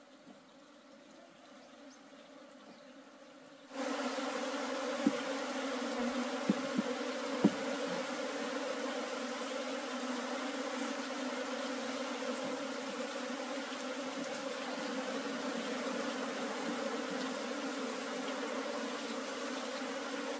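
Honeybees buzzing in a dense, steady hum. It is faint at first and becomes suddenly much louder a few seconds in. A few sharp knocks come soon after the hum grows loud.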